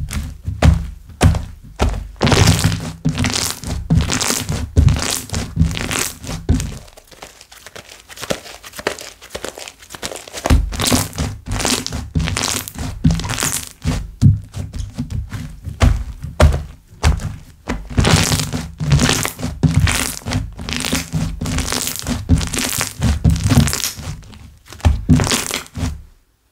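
Slime being squeezed and pressed by hand: sticky smacks and soft thuds mixed with crackling pops of air bubbles, in quick runs, with a quieter stretch about seven to ten seconds in.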